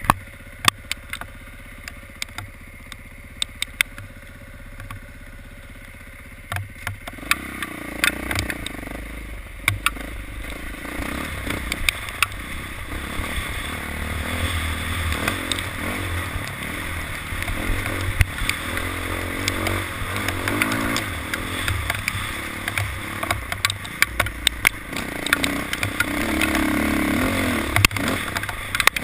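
Motorcycle under way, its engine running quietly at first and then pulling harder from about seven seconds in, the rumble rising and falling. Many sharp clicks and ticks are scattered throughout.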